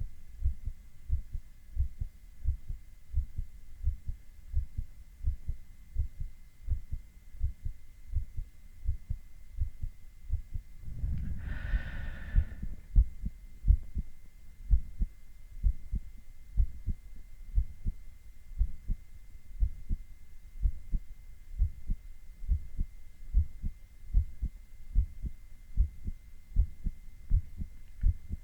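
A man's heart sounds through a stethoscope: a regular lub-dub heartbeat of low, dull thumps. About 11 seconds in, a brief noisier sound of a second or so rises over the beats. A faint steady high-pitched whine runs underneath.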